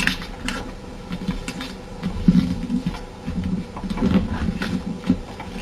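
A sheet of paper handled and creased by hand: scattered soft rustles and crinkles as a paper airplane's wing is folded over and pressed flat.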